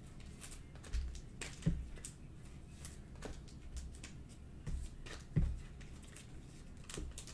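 Trading cards being handled and slid into clear plastic sleeves: light rustling and clicking of card and plastic, with a few soft thumps as cards are set down on the table.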